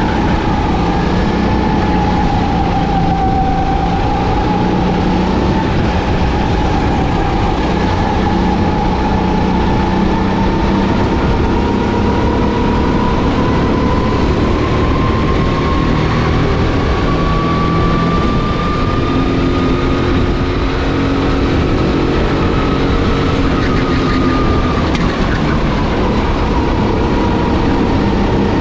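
Racing kart engine running at high revs under steady noise, its pitch climbing slowly over several seconds and falling back again near the end, with fainter engine tones beneath it.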